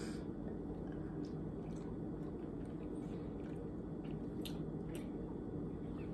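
Wet mouth sounds of people sucking and licking hard lollipops, with a few sharp little clicks and smacks, over a steady low room hum.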